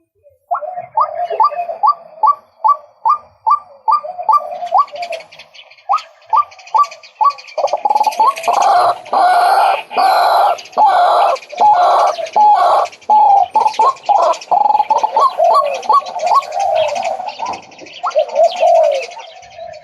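Male white-breasted waterhen calling. A run of short rising notes at about three a second turns into a loud, dense string of repeated calls a little under eight seconds in, then goes back to quicker separate notes.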